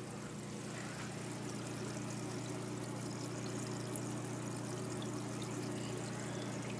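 Aquarium water splashing and trickling steadily, as from a filter's outflow pouring back into the tank, with a low steady hum underneath.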